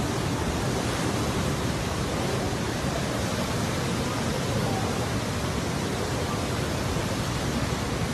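Floodwater rushing past in a steady, unbroken noise.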